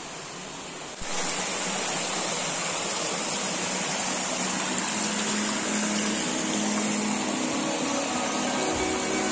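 Stream water rushing and splashing over rocks in a small cascade, a steady rushing hiss that cuts in suddenly about a second in, after a quieter hiss.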